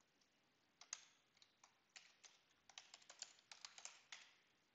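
Faint typing on a computer keyboard: an uneven run of short keystrokes starting about a second in and stopping shortly before the end.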